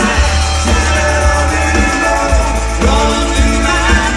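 Background music: a song with a singer over a steady, heavy bass.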